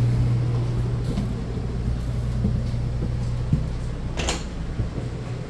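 An RV interior door being handled: a knock about three and a half seconds in and a short scrape just after four seconds. A steady low hum runs underneath.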